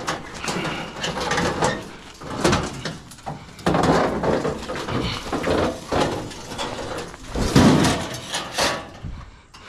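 Sheet-metal casing of a scrapped HVAC unit being wrenched and bent by hand, scraping, rattling and clanking, with the loudest bangs near the end as the panel comes loose.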